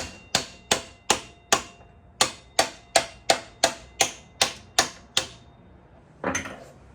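Hammer blows on a socket held against a sportbike's front axle, driving the axle out through the fork: about fourteen sharp strikes at a steady rate of roughly three a second, with a faint metallic ring and a short break near two seconds in. A brief clatter follows a little past six seconds.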